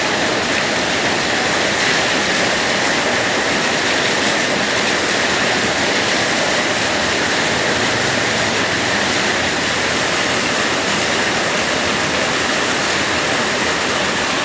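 Heavy rain pouring down steadily, a dense, unbroken hiss.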